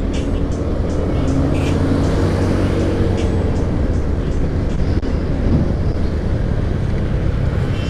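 Honda Scoopy scooter riding at a steady pace, its small engine's hum almost buried under a steady low rumble of wind and road noise.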